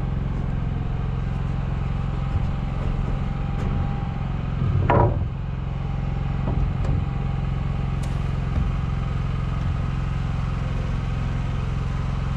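An engine running at a steady drone throughout. About five seconds in there is one short, louder handling bump, and there are a few faint clicks.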